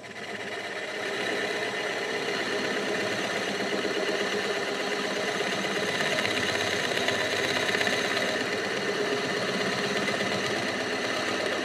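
Drill press running as a 13 mm brad point bit bores a shallow ferrule hole into a laminated hardwood guitar body. The sound grows louder about a second in as the bit bites into the wood, then holds steady.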